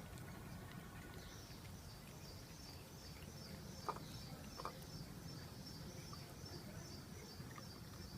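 Faint steady background noise with a high chirping repeated a few times a second, and two short soft clicks near the middle.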